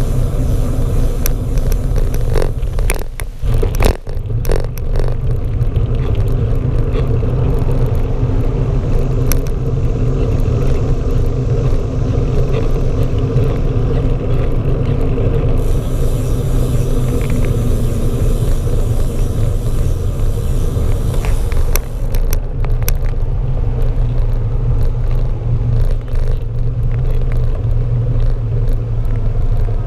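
Steady low rumble of a moving bicycle's ride picked up by a GoPro on a rigid seat mount: wind on the microphone and road vibration from tyres on asphalt. A short run of knocks and rattles about two to four seconds in, from bumps in the road.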